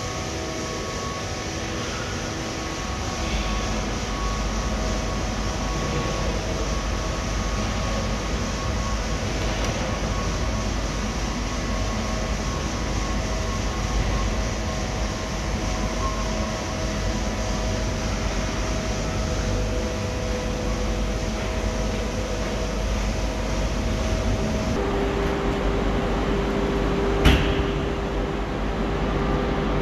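Automatic tunnel car wash machinery running: rotating brushes, water sprays and conveyor make a steady mechanical noise with several humming tones, heard from behind a glass window. Near the end a new steady hum comes in, followed shortly by a single sharp click.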